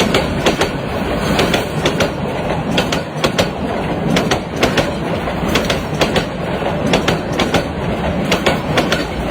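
Train wheels clattering over rail joints: a steady rumble with many sharp clicks from a moving railway carriage.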